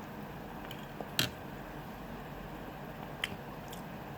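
Eating sounds: a few sharp clicks, the loudest about a second in and a smaller one past three seconds, over a steady low room noise.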